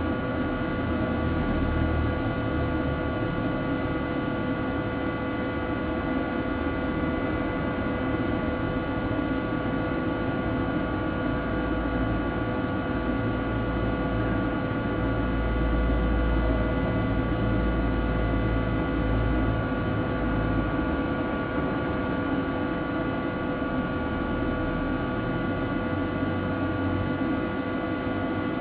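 Steady hum and hiss with several constant whining tones and a low rumble that swells about halfway through. There are no distinct events.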